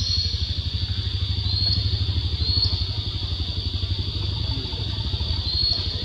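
A low engine-like rumble with a fast, even pulse, like a small motor idling, under a steady high-pitched insect drone. A few short rising chirps stand out over it.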